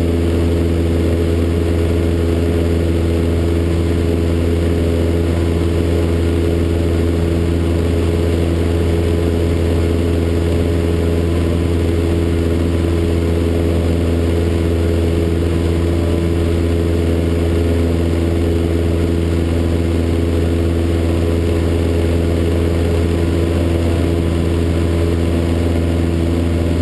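Single-engine propeller aircraft's engine and propeller droning loud and steady in flight, holding constant power with no change in pitch.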